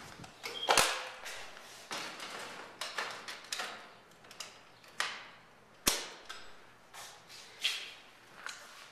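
Footsteps on a bare tile floor in an empty house, about two steps a second, with two sharper knocks, one about a second in and one about six seconds in.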